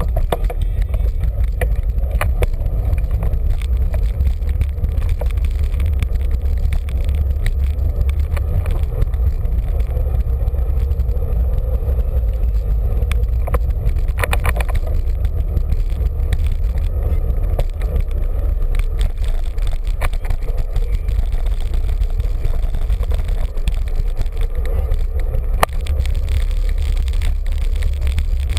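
Steady low rumble of wind buffeting a bicycle-mounted camera's microphone while riding through city traffic, with a few sharp knocks about halfway through and again near the end.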